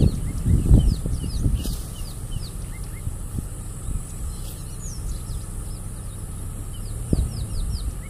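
Wild birds calling with many short, high, downward-sliding chirps, over an uneven low rumble that is heaviest in the first second.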